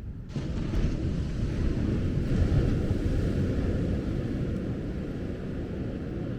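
Surf on a beach: a wave breaks suddenly about a third of a second in and washes up the shore, swelling and then slowly easing, over a steady low rumble of wind on the microphone.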